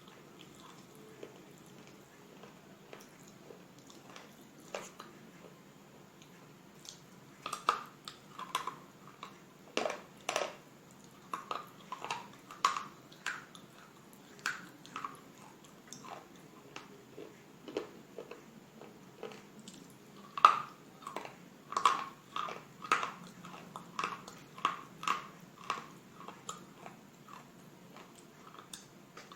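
Close-up crunching and chewing of slate bars: irregular, sharp crunchy bites and chews, sparse at first, then coming thick and fast in two spells, about a third of the way in and again past the middle.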